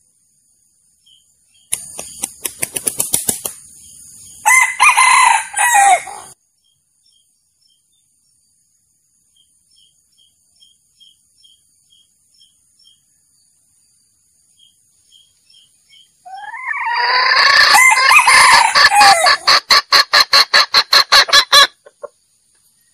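Male junglefowl calling in two loud bouts about ten seconds apart, each a crow mixed with a run of rapid, evenly repeated clucking notes; this is a lure call used for trapping junglefowl. Faint short chirps come between the bouts.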